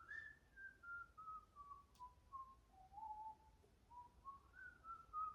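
A man whistling a tune softly: a string of short single notes that step down the scale for about three seconds and then climb back up.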